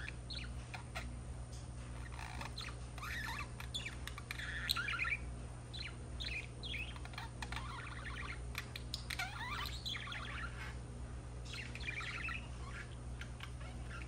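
Pet budgerigars warbling and chattering in bursts of quick chirps, squeaks and clicks, a few seconds apart, over a steady low hum.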